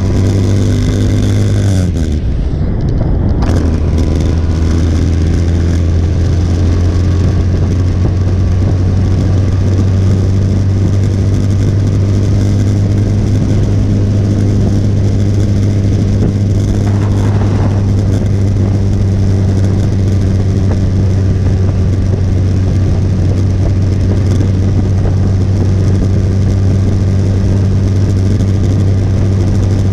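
Motorcycle engine running steadily at cruising speed, with a constant rush of wind noise. The engine note dips briefly about two seconds in, then settles back to a steady hum.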